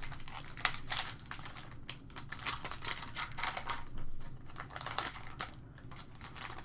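A trading-card pack's foil wrapper crinkling as it is torn open and handled, in a quick, irregular run of sharp crackles and clicks.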